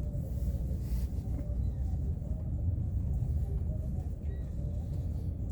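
Wind buffeting the microphone: a steady, heavy low rumble from strong gusts.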